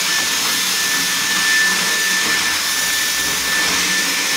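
Stick vacuum cleaner running steadily: a loud, even rushing with a thin high whine on top.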